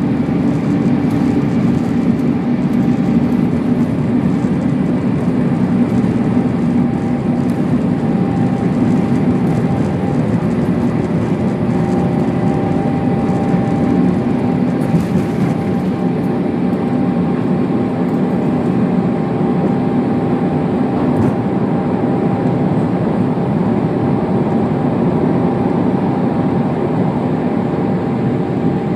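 Airbus A350-900 airliner with Rolls-Royce Trent XWB engines, heard from inside the cabin as it departs: a loud, steady roar of engines and rushing air with a faint steady whine.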